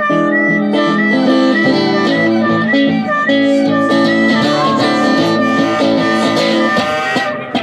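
Acoustic guitar and harmonica playing together live, with no singing: the guitar strummed and picked under held, wavering harmonica notes from a harmonica cupped against a microphone.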